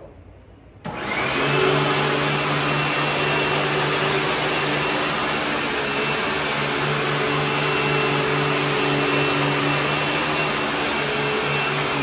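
Hoover Tempo Widepath upright vacuum switched on about a second in, its motor whine rising quickly to a steady high pitch. It runs steadily with its brush roll on carpet, then starts to wind down right at the end.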